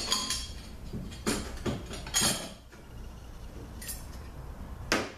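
Automatic-transmission parts (a clutch drum and piston) being handled on a steel workbench: a few sharp metal clinks and knocks, with quieter handling and scraping between them.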